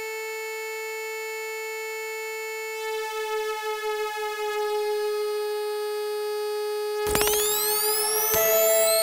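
Electronic music soundtrack: a steady held synthesizer tone that wavers slightly partway through. About seven seconds in, a burst of sweeping rising and falling synth glides enters and the music gets louder.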